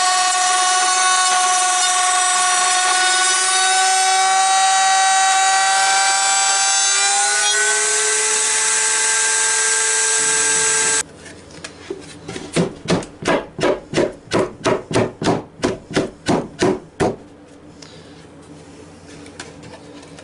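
Router in a router table running with a steady high whine while a board is fed along the fence to cut the groove for a box bottom. Its pitch steps up slightly about seven seconds in, and it cuts off suddenly about eleven seconds in. It is followed by about a dozen quieter rhythmic strokes, a little over two a second.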